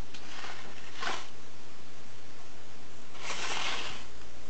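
Cats lapping milk from a small bowl: short spells of wet lapping, the longest about three seconds in.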